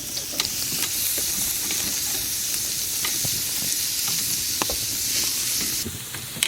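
Steaks sizzling as they cook, a steady hiss with scattered small pops and crackles; the hiss quietens near the end.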